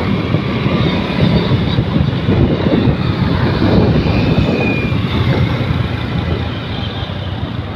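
A steady low rumble of wind on the microphone mixed with a motorcycle engine running, heard while riding along a road.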